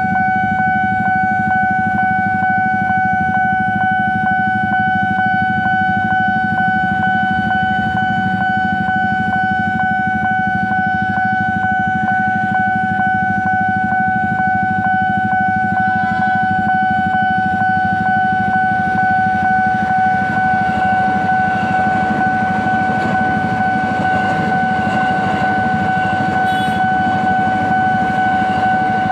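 Level-crossing warning alarm sounding one steady high tone over idling motorcycle engines. From about twenty seconds in, an electric commuter train's rumble rises as it passes through the crossing, and the alarm cuts off at the very end.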